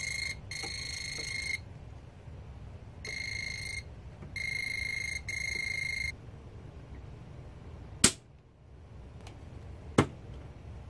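Non-contact voltage tester pen beeping in a steady high tone, five beeps of under a second each, as it is held near the wires: the sign that the newly switched-on circuit's wires are live. Two short sharp knocks follow later, the first the louder.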